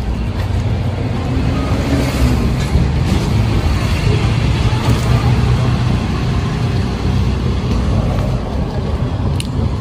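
Steady low rumble of street traffic and motor vehicles.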